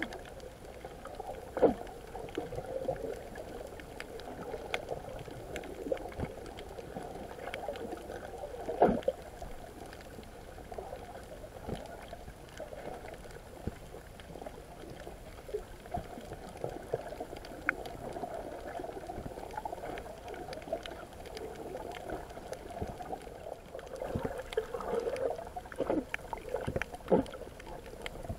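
Muffled underwater sound picked up through a camera's waterproof housing: a steady murky rush of water with gurgling and bubbling. Sharp knocks cut through it, the loudest about 2 seconds and 9 seconds in, with a cluster of them near the end.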